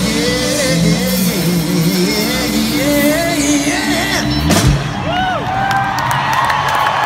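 Live rock band with electric guitars, bass, drums and keyboards playing at full volume. About two-thirds of the way through the band stops on a loud hit with a sliding low note, leaving the crowd cheering and whooping.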